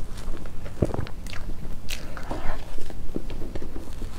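Close-miked chewing of a mouthful of soft cream cake: a string of short wet smacks and mouth clicks, over a steady low hum.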